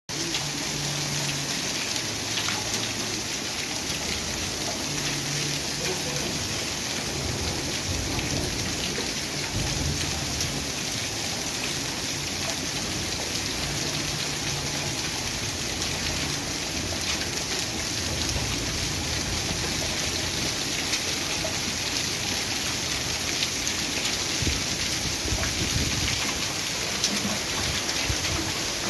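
Heavy rain mixed with hail: a steady hiss of downpour dotted with many small sharp ticks of hailstones striking.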